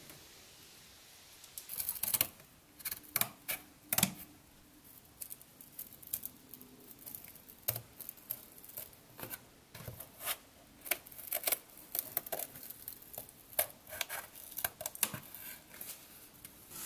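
Scissors snipping through a sheet of cardboard in short, irregular cuts, starting about two seconds in.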